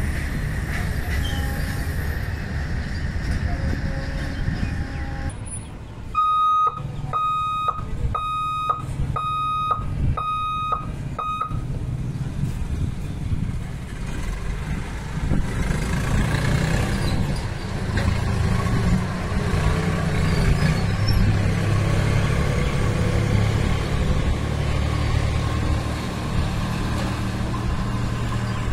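The tail of a freight train rumbles past on the rails, fading out about five seconds in. An electronic warning beeper then sounds six even beeps, roughly one a second. After that, motorcycle engines run as road traffic starts across the tracks.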